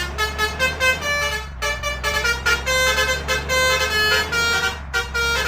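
Basuri multi-tone air horn ('telolet' horn) playing a quick melody of short, changing notes, over a steady low drone.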